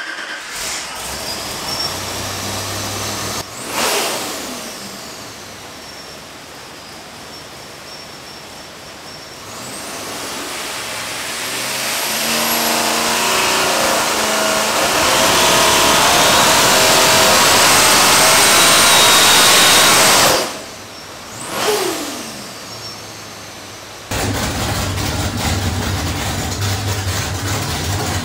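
Twin-TorqStorm-supercharged 427 Windsor small-block Ford V8 making a full-throttle dyno pull. After a quick rev a few seconds in, it climbs steadily in revs from about ten seconds in, with a rising supercharger whine, and cuts off sharply near the twenty-second mark. A second short rev follows, then the engine idles.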